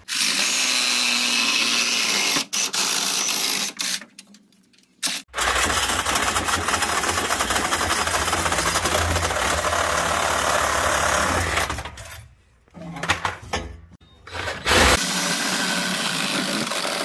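Power tool cutting through the steel exhaust pipe to take off an old glass-pack muffler, in three runs. It stops about four seconds in, starts again a second later, stops near twelve seconds and starts once more near fifteen seconds.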